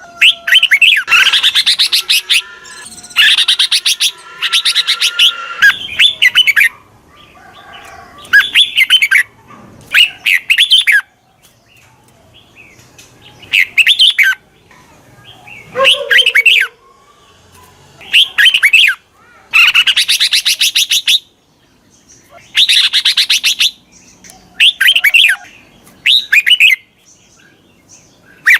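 Red-whiskered bulbul singing: short, loud, chattering phrases repeated every second or two with brief pauses between them. This is a decoy song of the kind used to call wild bulbuls in.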